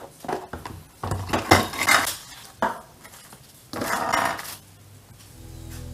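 Clear plastic parts box opened and 3D-printer extruder parts in plastic bags handled and set down on a wooden table: a string of clicks, rattles and crinkly handling noise, loudest about 1 to 2 s in and again about 4 s in. Music fades in near the end.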